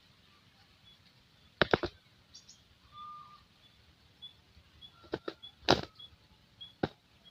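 Scattered sharp clicks and knocks, with faint short high chirps repeating about twice a second in the background.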